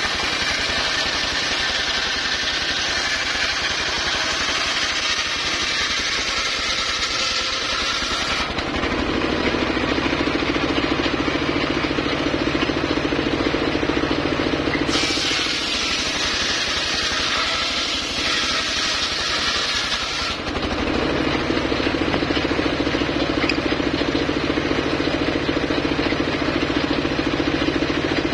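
Engine-driven homemade circular saw cutting timber. The blade bites into the wood twice, a harsh high-pitched cutting noise for about eight seconds and later for about five. Between and after the cuts the saw runs free with a steady engine hum.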